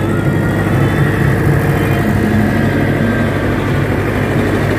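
Generator set running steadily inside its soundproof canopy, a steady low hum: a Mitsubishi 120 PS engine driving a 50 kVA alternator.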